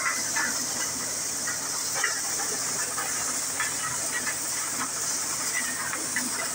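Maize thresher running under load, engine-driven: a steady rushing hiss from the drum and chute throwing out husks, with scattered rattles of cobs and kernels being threshed.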